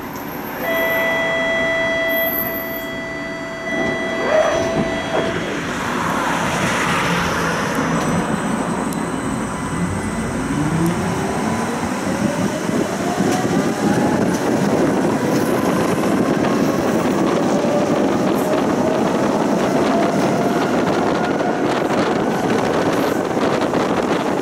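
Electric tram pulling away from a stop: after a steady tone lasting a few seconds, the traction motors whine, rising steadily in pitch as it gathers speed, over the rumble of wheels on the rails.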